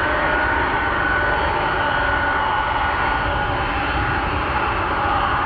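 Jet airliner engines running loud and steady: a dense rushing noise with high whining tones that drift slightly down in pitch.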